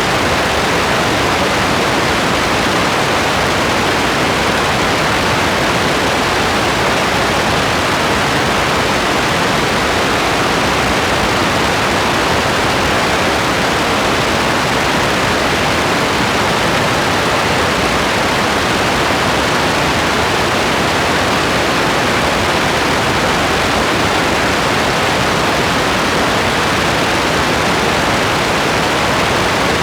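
Steady heavy rain: a dense, even hiss with no single drops, thunder or other sounds standing out.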